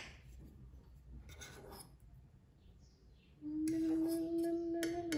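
Light scraping and clinking of a metal fork against a small steel saucepan as a biscuit ball is turned in a milk-chocolate sauce. In the last two seconds a louder, steady held tone sounds over it, with a few clicks.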